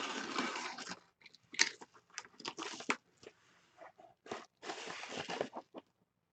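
Padded paper mailer envelope crinkling and rustling as hands reach into it and pull out its contents, in three longer bursts with short crackles between.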